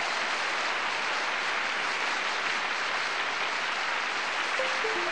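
Live concert audience applauding steadily as a gospel quartet is welcomed on stage.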